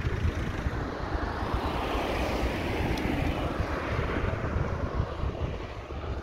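Engine noise of a passing vehicle, swelling over the first couple of seconds and fading away, over a steady low rumble.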